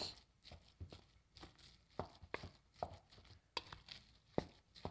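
Bamboo spoon stirring raw ground pork in a stainless steel bowl: irregular short knocks of the spoon against the bowl, roughly one or two a second.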